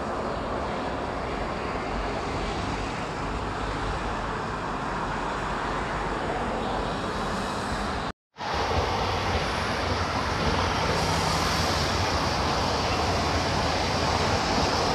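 Steady outdoor rumble of distant traffic, broken by a short dropout about eight seconds in and then coming back a little louder, with more hiss.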